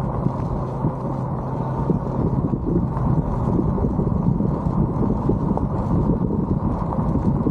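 Mobility scooter rolling steadily along a gravel road: a continuous low rumble of its tires on the gravel, with wind buffeting the microphone.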